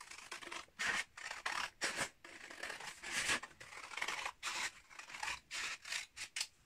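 Scissors cutting out a folded paper template along a drawn curve: a run of short snips, a few a second, with brief pauses between them.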